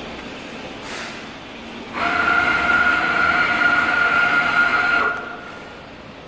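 Motor of a Focus Polar-Jet direct-to-garment printer, built on an Epson SureColor T7280, running with a steady whine for about three seconds as the machine starts a test-sheet print. It starts suddenly about two seconds in and stops about five seconds in, over a lower steady machine hum.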